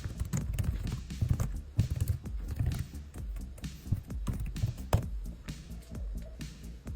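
Background music with scattered sharp clicks and taps over it, the sharpest about five seconds in.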